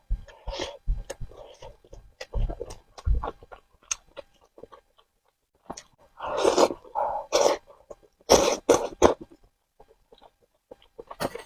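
Close-miked eating sounds of Korean spicy noodles being chewed and slurped, coming in irregular bursts with a pause of about two seconds near the middle.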